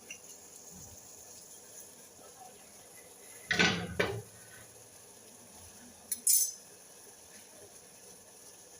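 Metal spoon clinking against a pan: two knocks close together about three and a half seconds in, then a short clink about six seconds in, over a faint steady hiss.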